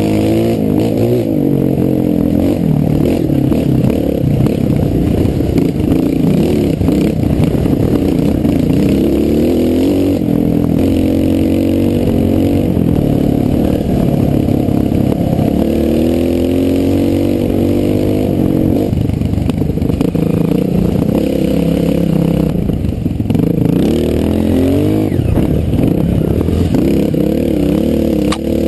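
Honda CRF 230 trail bike's single-cylinder four-stroke engine running under way, its revs rising and falling over and over with the throttle and gear changes.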